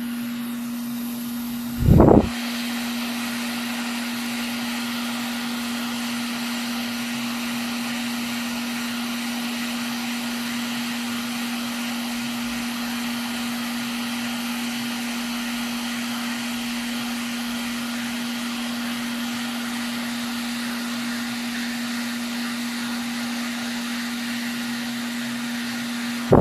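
Electric air blower running steadily: a constant hum with an even airy hiss. One loud thump about two seconds in.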